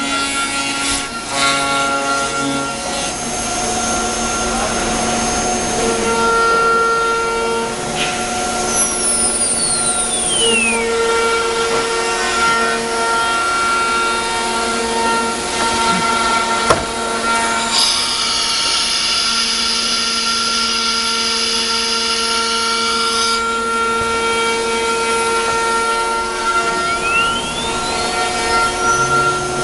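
CNC router's electric spindle running with a steady high whine as the bit cuts wood. The whine glides down in pitch about a third of the way in and glides back up near the end, with a stretch of hiss for about five seconds past the middle.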